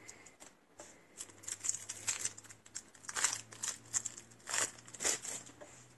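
Plastic shrink-wrap crinkling and crumpling in the hands as it is stripped off a new deck of game cards, in irregular crackling bursts.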